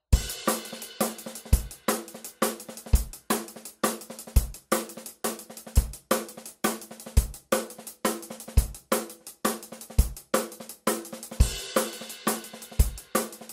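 Intro music: a steady drum-kit beat with hi-hat and cymbals, a kick drum about every second and a half, over a few held notes.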